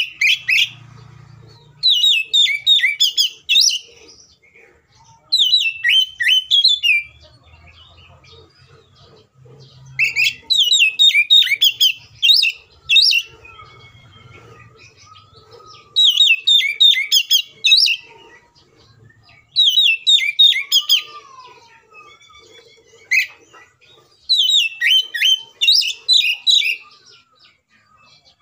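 Oriental magpie-robin (kacer) singing loud, rapid phrases of high chattering and whistled notes, about six bursts of a second or two each with short pauses between. It is the full, aggressive fighting-mood song that keepers play to provoke other magpie-robins into singing.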